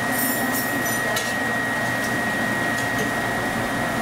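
Steady kitchen background noise: an even machine-like hum and hiss with a thin, steady high whine over it, and a light click about a second in.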